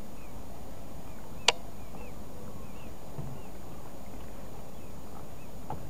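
Small waves lapping gently at the lake's edge under a steady low outdoor rumble, with faint short high chirps repeating throughout. One sharp click about a second and a half in, and a fainter one near the end.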